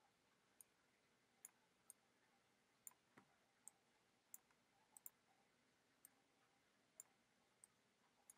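Faint, irregular clicks of a computer mouse button, about a dozen, as objects are selected and dragged on screen.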